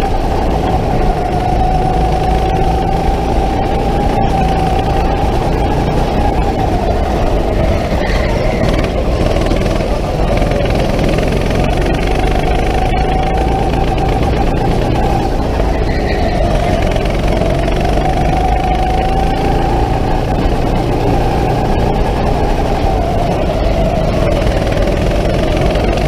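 Go-kart heard from on board, running at speed around an indoor track: a steady motor whine that rises and falls gently with throttle through the corners, over heavy rumble and vibration.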